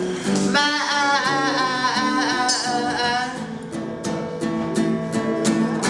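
A rock band playing, with guitar and regular drum hits. From about half a second in to about three seconds, a long held note with vibrato rides over the band, most likely a wordless sung note.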